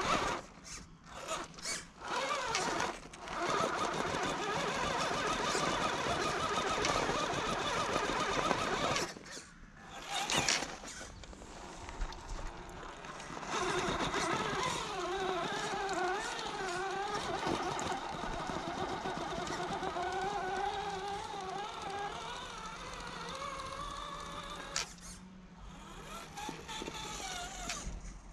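Electric motor and gear train of an Axial Early Bronco RC crawler whining as it drives, the pitch rising and falling with the throttle. It cuts out briefly a few times in the first ten seconds as the throttle is let off.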